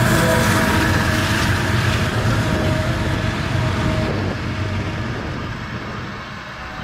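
Diesel freight train running past, a steady low rumble with a few held tones that stop about four seconds in, growing quieter over the last few seconds as it moves away.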